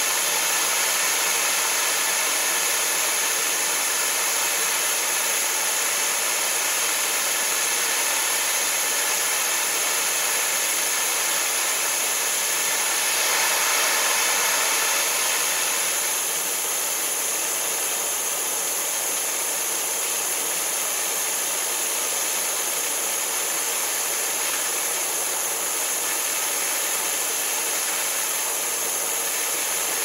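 Gas torch flame hissing steadily as it heats a case-hardened steel padlock shackle to a red glow to anneal it, swelling slightly about halfway through and a little quieter after.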